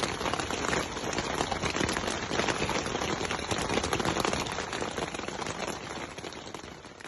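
Steady patter of rain falling on a surface, a dense spread of fine drop clicks that fades out near the end.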